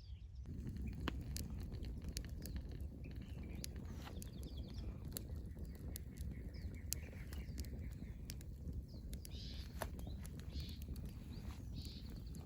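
Birds chirping over a steady low rumble, with light clicks scattered throughout.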